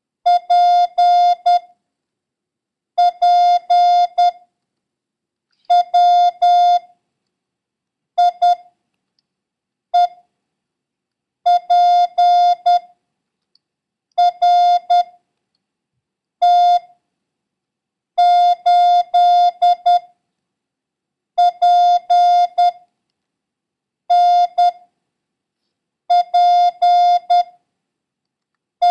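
International Morse code sent as a steady single-pitch beep, keyed in short and long pulses (dits and dahs) that form about a dozen characters, each group separated by a pause of about a second. It is a code-copying practice run of random letters and numbers heavy on the letter P.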